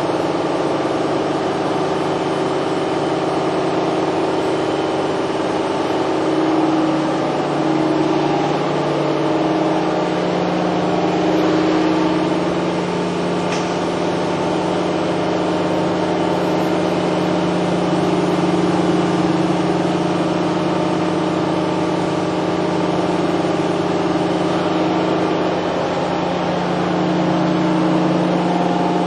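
Toshiba MPF-2114C bridge-type vertical machining center running under power: a steady mechanical hum made of several held tones, some shifting slightly in pitch now and then.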